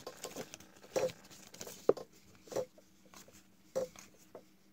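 Trading cards being thumbed through one at a time: a handful of short, soft flicks and slaps of card on card, about one a second.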